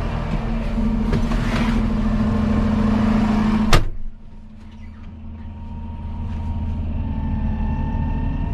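Fendt 828 Vario tractor's six-cylinder diesel idling, heard loud and open. About four seconds in, the cab door bangs shut once, and the engine drops to a much quieter, muffled hum inside the closed cab that slowly grows louder again.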